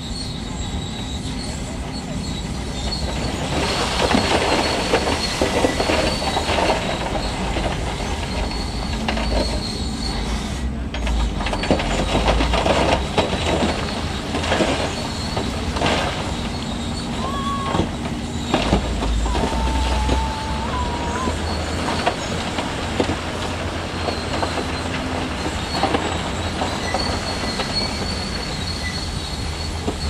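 Heavy diesel earthmoving machinery working, its engine running steadily under dense metallic clanking and a thin high squeal. Two brief whistle-like tones sound a little past halfway.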